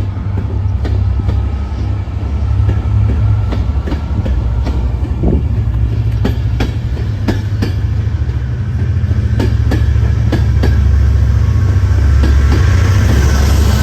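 Train running over the rails: a heavy low rumble with sharp, irregular wheel clacks over rail joints, and a hiss building near the end.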